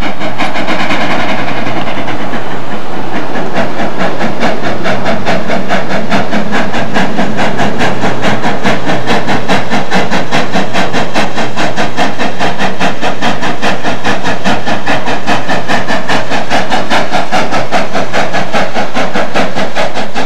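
Narrow-gauge coal-fired steam locomotive working upgrade with a train of coaches, its exhaust chuffing in a rapid, even rhythm.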